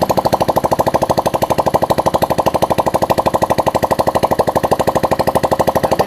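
Suzuki Skydrive scooter's single-cylinder four-stroke engine idling steadily with a fast, even putter, running after a valve grind that cured its lost compression: it now starts without hard starting.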